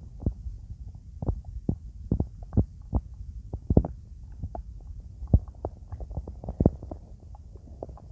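A person's stomach growling: a low rumble with rapid, irregular gurgles and pops, several a second, the loudest about four, five and six and a half seconds in.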